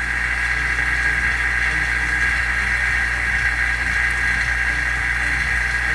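Vacuum pump running steadily as it pumps down a vacuum chamber: a constant drone with a higher steady whine over it.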